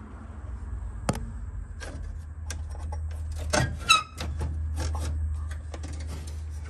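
Plastic and metal dashboard parts of a car's instrument cluster being handled: scattered small clicks and knocks, with one short squeak about four seconds in.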